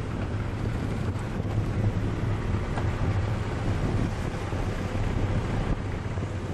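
Fishing charter boat's engine running with a steady low hum under heavy wind noise on the microphone.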